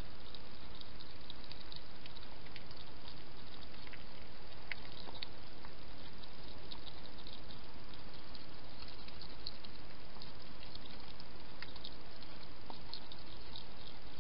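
Faint, irregular wet clicks and smacks of a wild hedgehog feeding, over a steady hiss.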